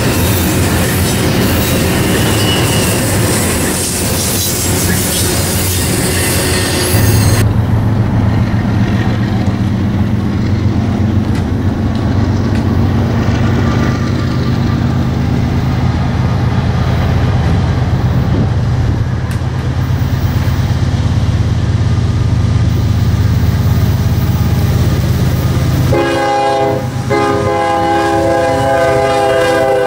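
Double-stack intermodal freight cars rolling past with steady wheel and rail noise, then, after a cut, the low drone of an approaching Norfolk Southern diesel freight locomotive. About 26 s in, its air horn sounds a multi-tone chord: a short blast, then a longer one.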